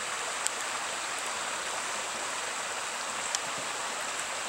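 Creek water running with a steady, even rush. Two faint ticks come through, one about half a second in and one near three and a half seconds.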